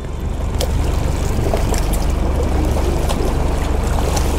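Seawater splashing and pouring as a small bucket on a rope is dipped over the side of a boat, over a steady low rumble.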